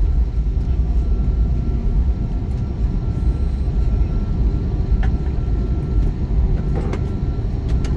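Airbus A321neo's Pratt & Whitney PW1100G engines running, heard inside the cabin as a steady low rumble with a faint steady whine. A few small clicks come about five and seven seconds in.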